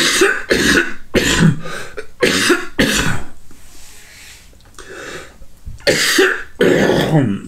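A man coughing into his hand: a quick run of about five coughs over the first three seconds, a pause, then two more coughs near the end.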